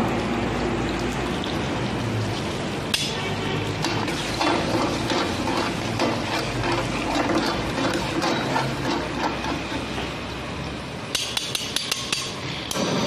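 Long-handled metal spatula scraping and knocking against a steel karahi while chicken pieces are stirred, ending in a quick run of sharp taps on the pan.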